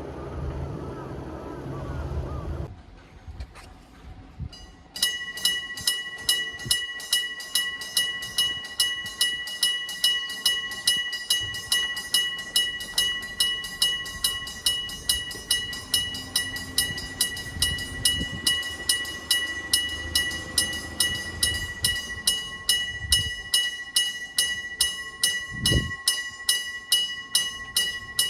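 Japanese railroad crossing warning bell starts ringing about five seconds in, a fast, even clang about twice a second with a ringing tone held between strikes. Before it, a low rumble cuts off suddenly.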